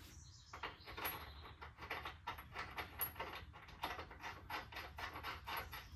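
Faint, irregular metallic clicking and clatter, about three clicks a second, as the upper mounting bolt and nut of a rear shock absorber are fitted.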